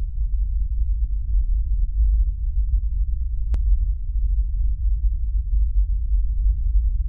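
A steady low rumble with nothing above the deep bass, and a single faint click about three and a half seconds in.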